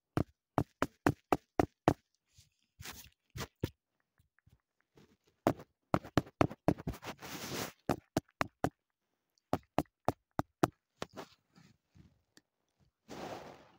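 A chocolate-covered marshmallow cookie tapped against a phone's camera: quick knocks, about four a second for the first two seconds, then scattered knocks and rubbing. A bite into the cookie near the end.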